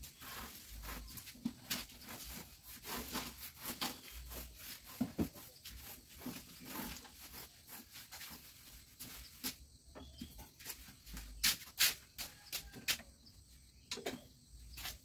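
Short broom sweeping dry husks across a bare concrete floor in irregular scratchy strokes, with a few sharper clicks and knocks in the second half.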